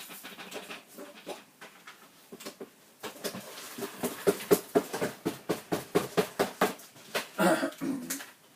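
Plastic dirt bin of a Dyson Ball vacuum cleaner being tapped and knocked repeatedly, at about three to four knocks a second, to shake the dust and debris out of the chamber. A louder, longer sound comes near the end.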